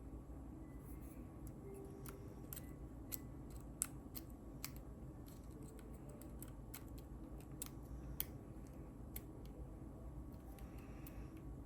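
Lock pick working inside a pin tumbler lock: irregular light clicks and ticks as the pins are probed, a few sharper than the rest. A faint steady hum runs underneath.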